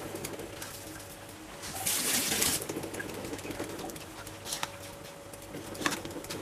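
A metal spoon stirring and scraping a soft filling of chopped nuts, cheese and dill in a ceramic bowl. There is a louder rustling scrape about two seconds in and a couple of sharp clicks of spoon against bowl later, over a steady low hum.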